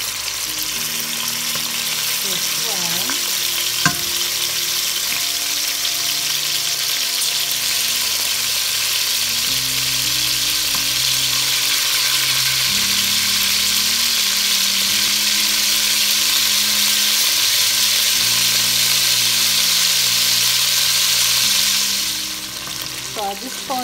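Cubes of raw beef sizzling as they fry in hot vegetable oil in a stainless steel pot, the sizzle building as more pieces go in. A single sharp knock about four seconds in, and the sizzle drops away near the end.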